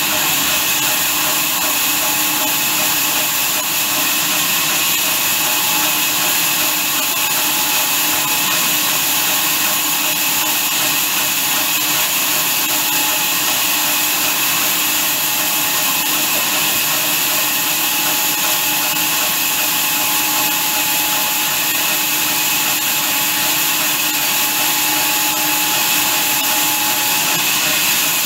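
Horizontal band sawmill running steadily as its blade cuts lengthwise through a large log: a continuous hiss from the blade in the wood with a faint steady whine beneath.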